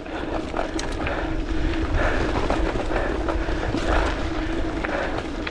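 Mountain bike riding down a dirt trail: wind rushing over the camera microphone and tyres rolling on dirt, with scattered knocks and rattles from the bike and a steady hum underneath.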